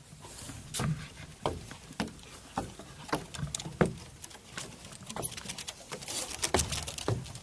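Footsteps of a hiker walking on a mountain trail, a steady stride of about one and a half steps a second, each step a dull thud with a gritty crunch.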